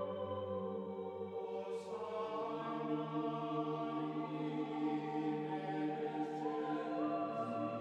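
Slow ambient background music of long, held, layered tones with a chant-like drone. The notes shift about two seconds in and again near the end.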